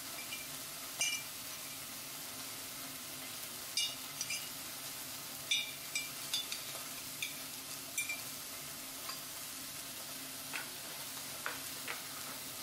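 A metal spoon scraping and clinking against a glass food-storage container and a ceramic bowl as salad is spooned out: a scattered series of light, sharp clinks over a steady background hiss.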